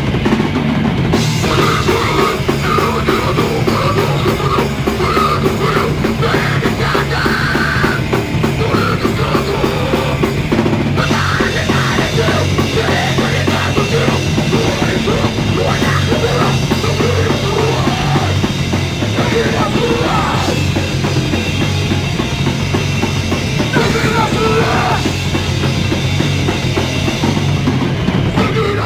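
A live rock band playing loud and without a break: distorted guitar, bass and a pounding drum kit, recorded on a phone. The song runs on through the whole stretch, with a short drop in level right at the end.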